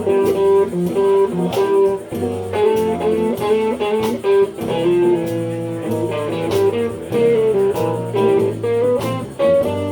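Live blues band playing an instrumental break, with guitar lines over bass and drums.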